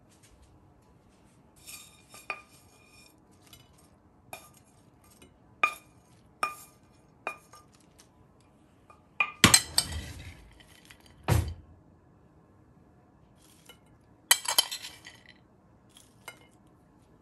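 Tableware clinking: a string of light clinks that ring briefly, a louder clatter about halfway through followed by a dull knock, then another clatter and a last clink near the end.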